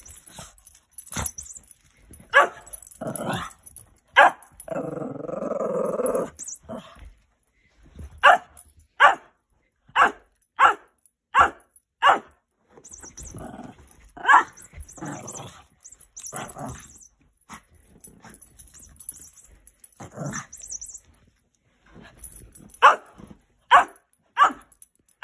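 Small dog barking over and over in play, short sharp barks coming about one a second with short pauses. A drawn-out growl of about two seconds comes near the start.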